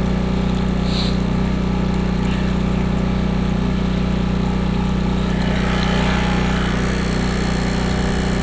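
Portable generator engine running steadily under load as it powers a sump pump. A rushing hiss swells about six seconds in, as the pump's hose begins to blast water out onto the ice.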